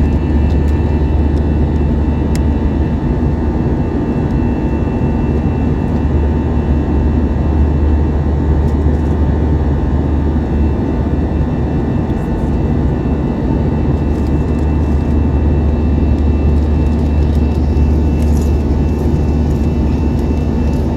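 Steady cabin drone of an Airbus A321 airliner in flight: engine and airflow noise heard from inside the passenger cabin, a deep rumble with a few faint steady tones above it.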